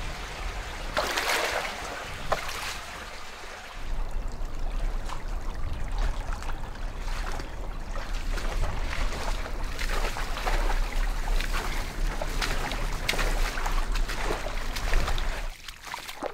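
Water trickling, then from about four seconds in, hurried footsteps crunching through leaf litter and brushing past twigs and undergrowth over a low steady rumble. The sound cuts off suddenly near the end.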